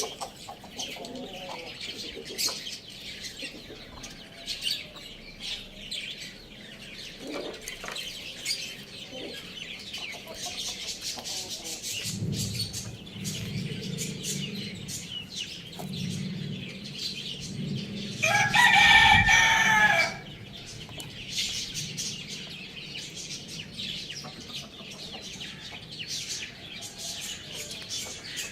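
A rooster crows once, loudly, about two-thirds of the way through, a call lasting about two seconds. Around it, small birds chirp continually and hens cluck.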